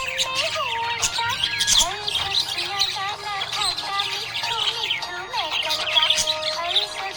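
Budgerigars chirping and warbling, a dense run of quick, overlapping high chirps, over background music.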